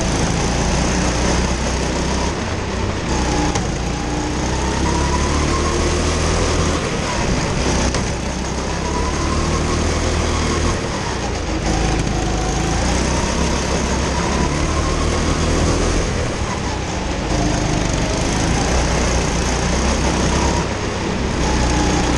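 Kart engine running hard through a lap, its pitch climbing and falling with the throttle and dropping briefly every few seconds as the driver lifts for corners, over a steady rushing noise.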